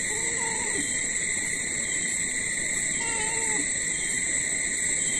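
Domestic cat meowing twice, two short calls about three seconds apart, over a steady high-pitched whine.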